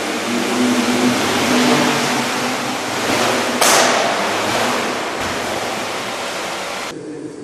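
Small quadcopter's propellers and motors running as it hovers low, a steady rushing whir with a faint motor hum under it. A brief louder gust comes about three and a half seconds in, and the rushing cuts off suddenly near the end.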